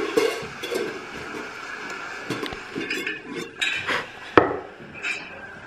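Dishes and cutlery clinking and knocking in an irregular string of small sharp clicks, with one louder knock a little past the middle.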